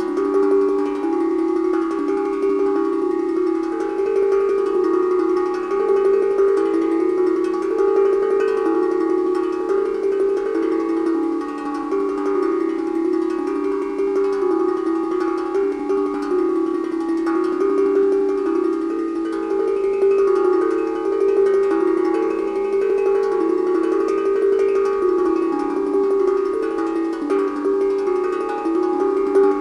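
Steel tongue drum played with a pair of mallets: a continuous, flowing melody of low, ringing notes that overlap as each one sustains.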